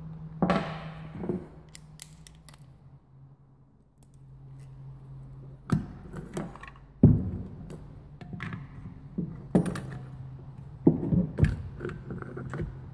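Scattered metallic clicks and knocks as a nut is fitted and tightened with a wrench on the battery stud of a Delco Remy alternator, its insulated stud held off the housing with tape and a plastic washer. A steady low hum runs underneath.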